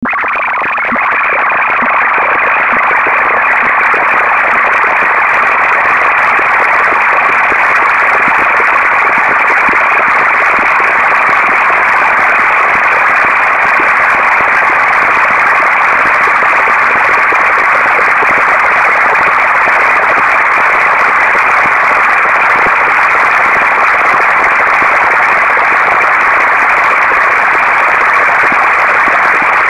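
Computer-generated procedural sound driven by a pixel-sorting algorithm: a loud, dense, steady wash of noise with little low or high end. It starts suddenly and grows a little louder over the first second, then holds without change.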